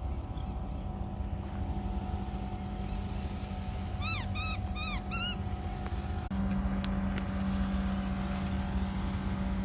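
Steady engine hum from a vehicle, getting a little louder just past halfway, with a bird giving four quick calls in a row about four seconds in.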